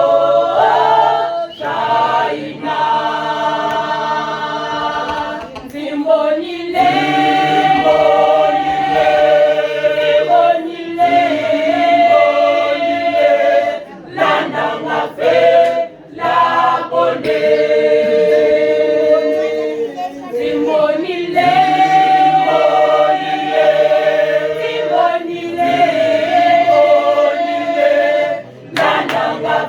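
A choir singing a cappella in harmony, holding long chords phrase by phrase with short breaks between phrases.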